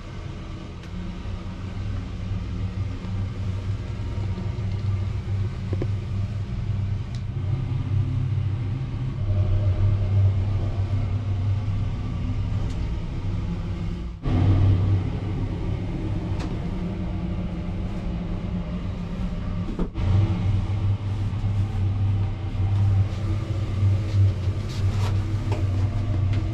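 A steady low rumble that builds over the first few seconds and breaks off abruptly twice, about halfway and about three-quarters through.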